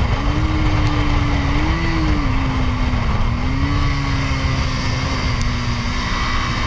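Motorcycle engine running at road speed, its note rising and dipping a few times as the revs change, over heavy wind rush on the helmet microphone.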